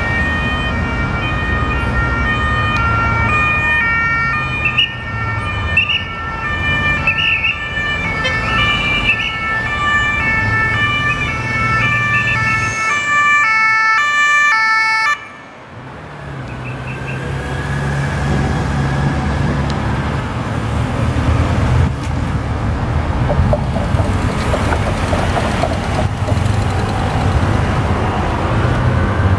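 Police escort sirens sounding in several overlapping, alternating tones over motor traffic. They cut off suddenly about halfway through, and the engine and road noise of passing vehicles and motorcycles follows.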